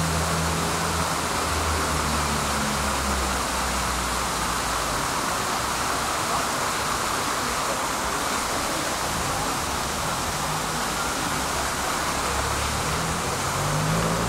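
Steady rushing noise of city street traffic at a tram stop. A low engine hum fades in the first few seconds, and near the end a vehicle pulls away with a rising motor note.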